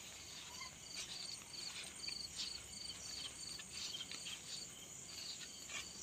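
Crickets chirping at night: short high chirps repeating about two or three times a second. Faint footsteps and rustles on a dirt forest path.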